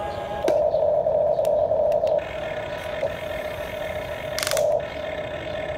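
Electric motors of a Huina RC excavator whining steadily as the boom and bucket move, louder in the first two seconds and again near the end. A short scraping rattle comes about four and a half seconds in.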